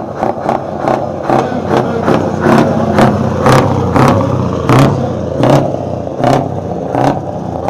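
Scania 143H V8 450 truck's 14-litre V8 diesel revved hard while pulling away, blowing black smoke. It comes in short, sharp blasts over a steady engine note, several a second at first, then spreading out to about one a second.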